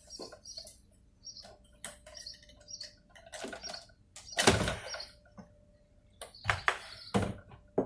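Clicks and knocks of a PLC's parts and wire connectors being handled and unplugged during disassembly, the loudest a knock about halfway through. Short high chirps sound repeatedly in the background.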